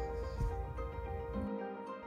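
Background music of soft held notes, with no speech; the bass drops out for the last half second.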